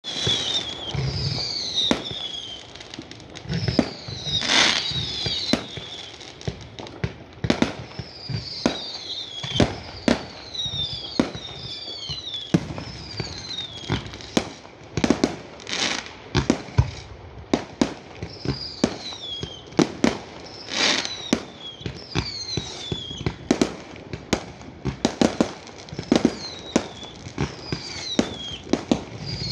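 A fireworks display: a rapid, irregular run of sharp bangs and cracks, some with a low rumble after them, mixed with repeated short whistles that fall in pitch.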